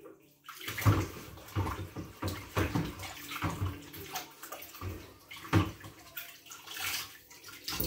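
Washing-up water sloshing and splashing in a stainless steel kitchen sink as a hand scrubs a dish down in the water, in irregular splashes about once a second.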